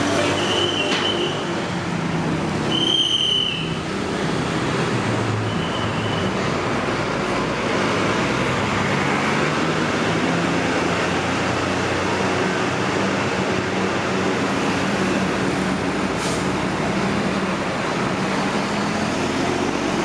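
Large diesel bus engines running in a bus terminal, a steady rumble with a low hum, broken by a few short high squeaks about a second in and again around three seconds.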